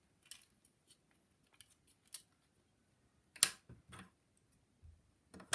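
LEGO plastic pieces clicking as side panels are unclipped and pulled off a brick-built model: scattered small clicks, then a sharper snap about three and a half seconds in and a few more clicks after it.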